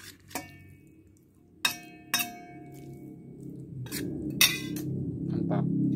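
Metal spoon clinking and scraping against a stainless steel plate as instant fried noodles are stirred and scooped: a handful of sharp clinks, each with a short ring. Background music swells in during the second half.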